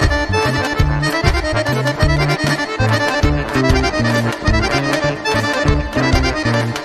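Accordion-led Bulgarian Roma kyuchek dance tune played by a band, fast running accordion melody over a stepping bass line and a steady beat.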